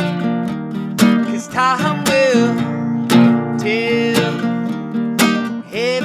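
Acoustic guitar strummed about once a second, with a man's held, wordless sung notes wavering over it.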